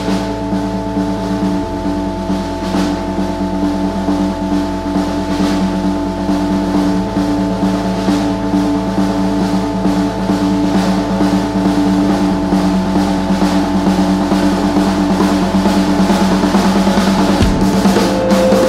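A hardcore/indie band playing: a sustained chord holds over a bass line that changes note about every five seconds, while a drum kit plays snare and bass-drum strikes. The whole build grows gradually louder.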